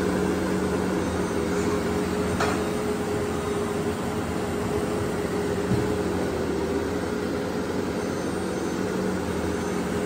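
Case SV340 skid steer's diesel engine running at a steady speed: an even, unchanging hum.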